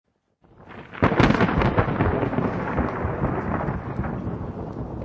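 A thunderclap: a sudden loud crack about a second in, then a crackling rumble that slowly fades away.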